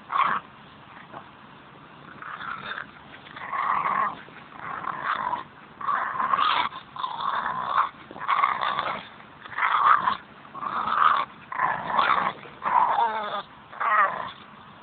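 Staffordshire bull terrier growling in over a dozen short bursts while tugging on a stick in play.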